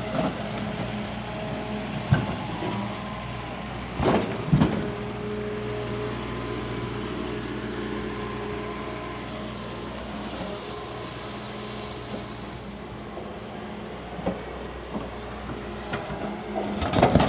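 Large excavator's diesel engine running steadily, with sharp knocks about two and four seconds in and a cluster of louder clanks near the end.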